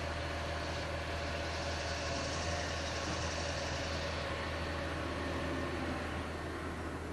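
Waste truck's engine running steadily: a low hum under a broad rushing hiss that swells for a couple of seconds in the middle and then eases.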